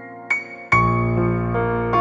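Background piano music: a single note, then a fuller chord with deep bass coming in under a second in.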